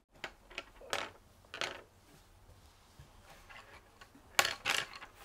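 Felt-tip marker strokes scratching across paper, short separate strokes with the loudest, a quick run of three, about four and a half seconds in.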